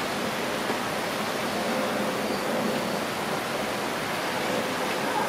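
Steady, even hiss of rain falling, with a faint steady tone setting in about two seconds in.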